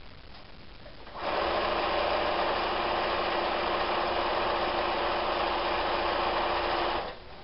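Electric sewing machine running at a steady speed, stitching pieces of a quilt block. It starts about a second in and stops shortly before the end.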